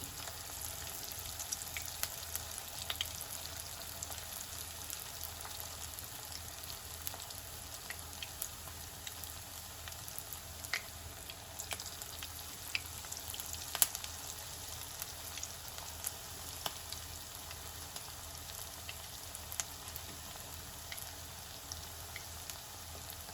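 Vegetable Manchurian balls deep-frying in hot oil: a steady sizzle with scattered pops and crackles.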